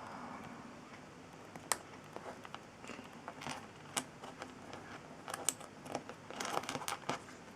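Light clicks and rattles of hard plastic model-kit parts being handled and fitted together: a sharp click about two seconds in, another about four seconds in, and a quick run of clicks near the end.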